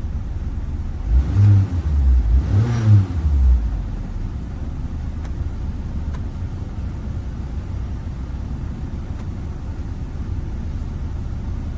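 Car engine idling with a steady low rumble. The engine is briefly revved twice, about one and three seconds in, then settles back to idle.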